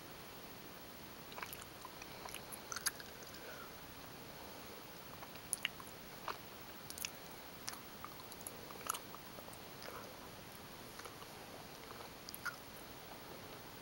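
A person chewing gummy bears close to the microphone: irregular sharp mouth clicks and smacks over a steady hiss.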